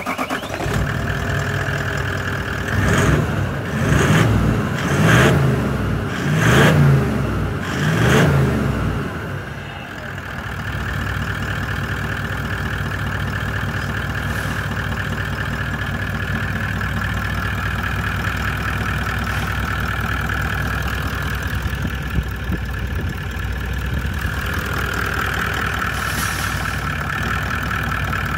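2007 Toyota Land Cruiser turbo-diesel engine running just after starting. The throttle is blipped five times in quick succession during the first nine seconds or so, then the engine settles into a steady idle.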